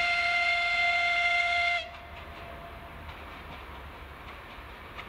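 Diesel locomotive horn sounding one steady, high blast of about two seconds that cuts off sharply.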